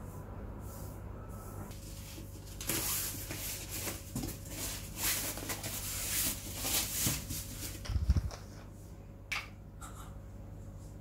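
A cardboard sheet scraping and rustling as it is slid inside a cotton t-shirt, over a steady low hum. The handling ends in a low thump about eight seconds in, and a short sharp click follows about a second later.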